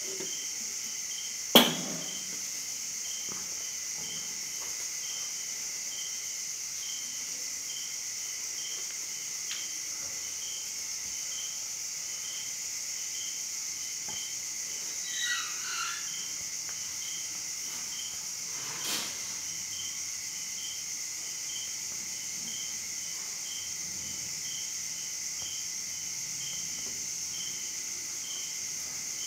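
Steady insect chirping: a high, even hiss with a regular chirp about one and a half times a second. A sharp knock about two seconds in is the loudest sound, with a short call about halfway through and a fainter knock a few seconds later.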